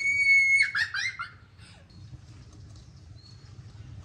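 A bird calling: one long, high, held note, then a quick run of shorter falling notes that dies away after about a second and a half.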